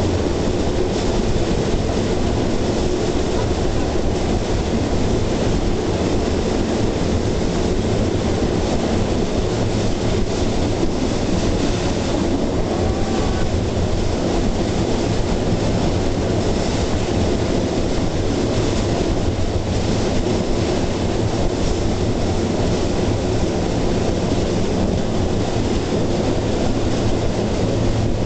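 Steel wheels of a pedal-powered rail mountain bike rolling along the rails of a disused railway line: a steady, continuous rumble and rattle.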